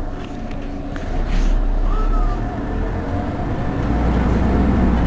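Mercedes-Benz Citaro G C2 articulated bus standing with its engine idling: a steady low rumble that swells louder about a second in and again near the end.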